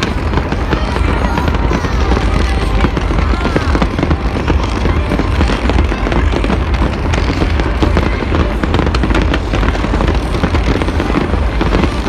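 A dense, continuous fireworks barrage: many rapid overlapping bangs and crackles over a heavy low rumble.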